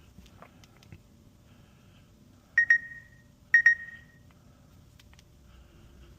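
Two short high-pitched electronic beeps about a second apart, each a quick double chirp that rings out briefly, with a few faint clicks of handling around them.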